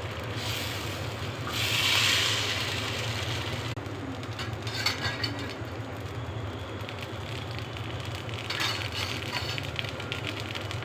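Dosa batter sizzling on a hot tawa, a hiss that is loudest about two seconds in. It breaks off sharply near four seconds, and light clicks and a second stretch of sizzling follow.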